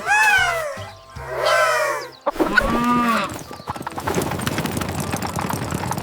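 Three short pitched farm-animal calls, each arching and falling in pitch, then a busy clattering noise from about four seconds in.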